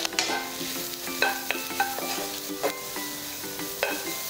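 Julienned carrots sizzling in a little oil in a non-stick wok while a wooden spatula stirs and tosses them, with a few short taps and scrapes of the spatula against the pan.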